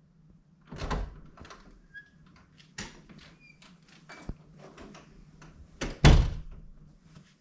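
A string of separate knocks and thuds, as of household handling, the loudest about six seconds in.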